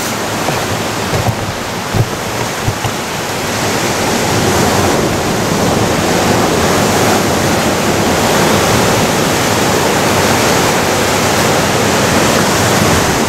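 Ocean surf breaking on a rocky shore and washing up the sand, a loud, steady rushing that swells a little about four seconds in. A few short knocks come in the first few seconds.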